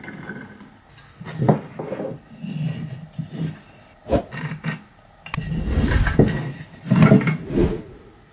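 Pine blocks and posts handled on a wooden workbench while they are marked out with a square and pencil: irregular scraping and rubbing of wood on wood, with a few sharp knocks, a clear one about four seconds in.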